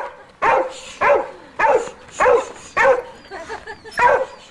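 A dog barking in a steady run, about seven short barks, a little under two a second.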